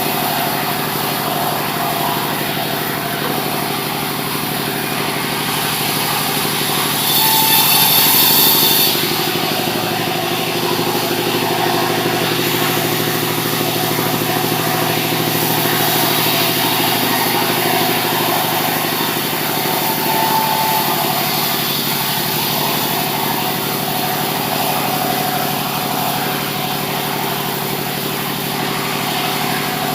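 Sawmill machinery running steadily with an engine's hum. About seven seconds in it grows louder and hissier for about two seconds.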